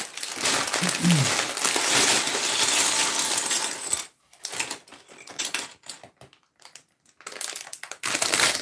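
Loose LEGO bricks poured out of a plastic bag clattering onto a wooden table, with the bag crinkling: a dense rattle for about four seconds, then scattered clicks as the pieces are spread by hand, and another short rattle near the end.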